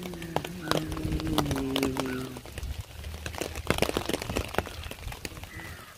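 Raindrops tapping irregularly, sharp and uneven, over a low steady hum. For the first two seconds or so a low droning tone is also heard, stepping down in pitch before it stops.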